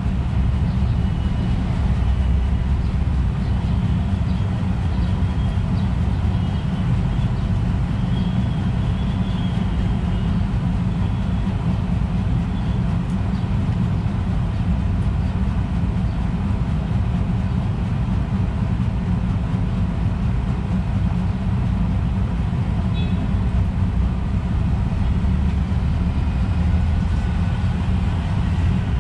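A steady low rumble with faint, high bird chirps now and then, a few in the first third and a short one about two-thirds of the way in.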